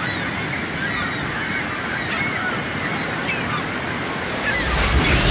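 A steady rushing noise with many short chirps over it, swelling louder about four and a half seconds in.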